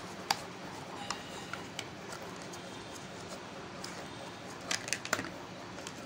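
Hard plastic glasses case being handled and opened, with a sharp click near the start and a quick cluster of clicks about five seconds in, over a steady low hum.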